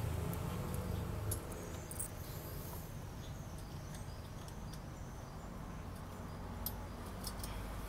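Scattered light clicks and ticks of small metal fasteners being handled by hand while fitting a motorcycle radiator guard, over a steady low hum.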